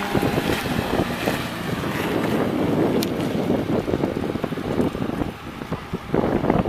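Wind buffeting the microphone: rough, irregular gusting noise with no clear engine note, swelling again near the end.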